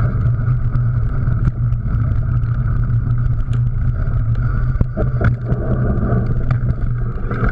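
Mountain bike ridden over rough trail: a steady low wind rumble on the microphone, with frequent sharp clicks and rattles from the bike.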